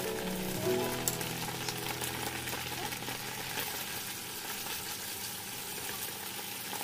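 Tomato sauce sizzling in oil in a frying pan as it is stirred with a wooden spatula, a steady hiss with a few scrapes and clicks.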